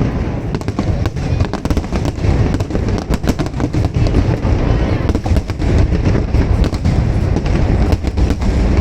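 Aerial fireworks going off in rapid, dense succession: a constant rattle of overlapping bangs and crackles over a heavy low rumble.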